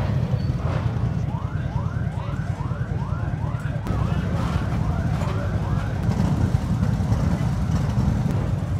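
Harley-Davidson motorcycles idling in a steady low rumble, over which a siren-like electronic whoop rises in pitch again and again, about two and a half times a second. It starts about a second in and dies away after about five seconds.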